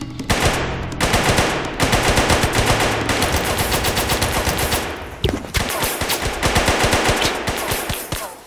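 Rapid automatic rifle fire in two long sustained bursts, with a short break about five seconds in.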